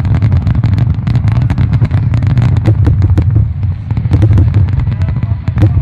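Fireworks display in heavy barrage: many aerial shells bursting in quick succession, sharp cracks over a continuous deep booming rumble.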